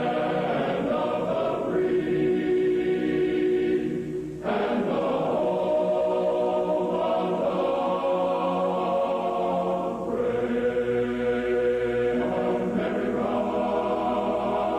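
Choir singing slow, sustained chords, with short breaths between phrases about four and ten seconds in.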